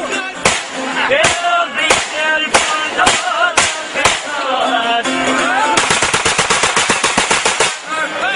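Handgun shots fired into the air, single shots roughly every half second, then about two seconds of rapid automatic fire near the end, over men singing with music.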